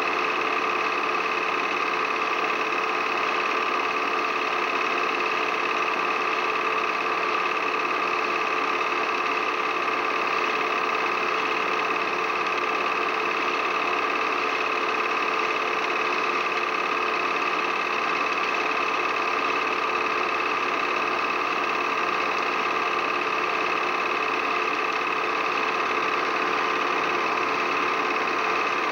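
Steady mechanical running noise from a small motor, with a high whine over it, unchanging in level and pitch throughout.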